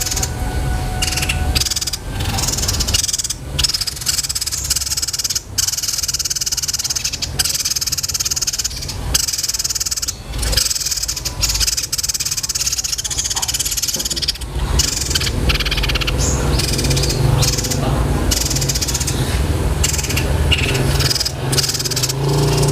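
Small songbird singing in shrill, fast rolling trills, like the roll of a fighting Eurasian tree sparrow, repeated with short breaks over a steady low rumble.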